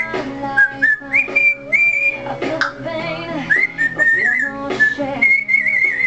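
African grey parrot whistling: a string of high whistled notes, some held steady and some warbling, over music playing.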